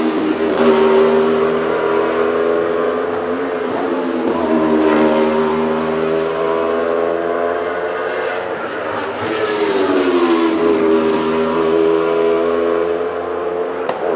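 Aprilia RSV4 1,000 cc V4 engine of a Wolf GB08 Thunder race car at racing speed. Its pitch falls at the start, then climbs and steps through gear changes as it accelerates. About ten seconds in, the sound swells and then drops in pitch as a car goes by closer, and there is a short click near the end.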